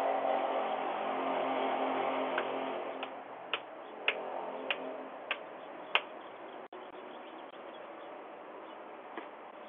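Outdoor ambience through a Ring doorbell camera's microphone: a low hum that fades over the first three seconds, then a run of about seven sharp ticks roughly half a second apart.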